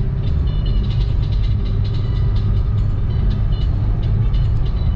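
Car driving along a street: a steady low rumble of engine and road, with faint light ticks.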